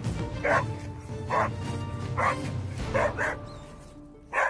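Border collie barking at a passing bicycle, six barks about a second apart, over background music. This is the wheel-chasing reactivity in which the dog loses control and barks whenever bikes, scooters or cars go by.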